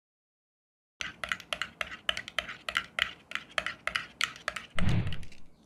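A metal spoon stirring soured milk in a glass cup, clinking against the glass about five times a second. Near the end comes a short, louder, low scuffing noise.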